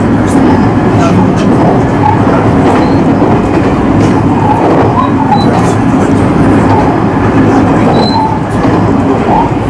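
Electric rapid train running along the line, heard from inside the lead car: a steady rumble of wheels on rail with a low running hum and a few light ticks.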